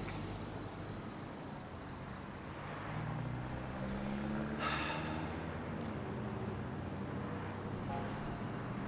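Road traffic: a steady low rumble, with a vehicle passing as an engine hum that swells about three seconds in.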